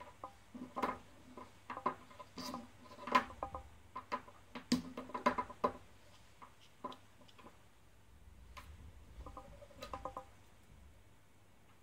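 Hard plastic robot parts and small servo motors clicking and knocking as they are handled, set down and pressed together on a wooden tabletop. The clicks come irregularly, thickest in the first six seconds, with a few more close together around nine to ten seconds in.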